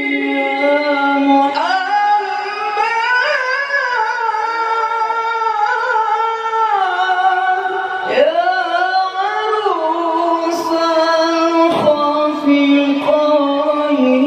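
A man singing a sholawat (Islamic praise song for the Prophet) in a high register into a microphone over loudspeakers. He holds long notes and ornaments them with melismatic runs and glides.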